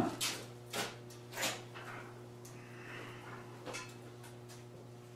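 Several short knocks and clatters of hard objects being picked up and set down while searching for a loose axle bearing, over a steady low hum.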